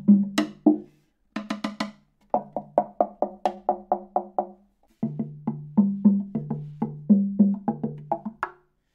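Handmade wooden slit tongue drum struck with a yarn marimba mallet: quick runs of strokes moving between its two notes, each stroke a short woody knock with a low ringing tone. The runs pause briefly about a second in and about halfway through.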